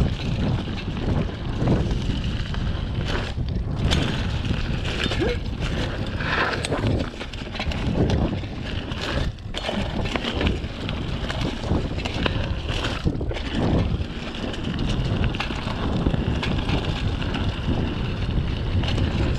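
Mountain bike riding over a packed dirt trail: steady tyre and wind noise with frequent knocks and rattles from the bike as it goes over bumps, and wind buffeting the microphone.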